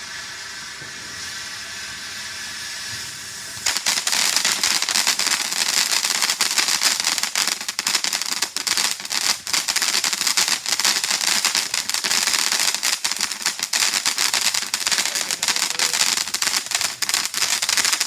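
A steady hiss, then about four seconds in a rapid, continuous run of firecracker pops and crackles that goes on without a break for some fifteen seconds, set off inside a toy washing machine.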